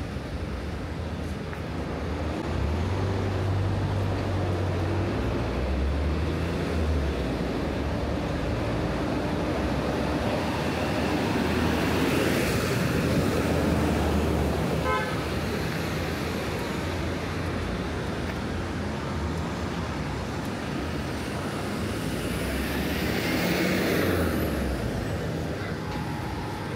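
Street traffic: vehicle engines running steadily, with vehicles passing and swelling louder twice. A short beep sounds about fifteen seconds in.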